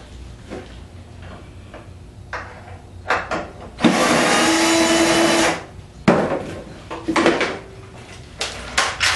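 Power drill running in one steady burst of just under two seconds, about four seconds in, backing a screw out of the fan motor cover. Scattered knocks and clicks of parts being handled come before and after it.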